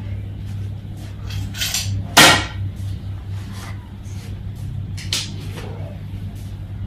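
Tent poles and nylon fabric being handled while pitching a dome shelter: swishes and rustling, with one sharp clack about two seconds in, over a steady low hum.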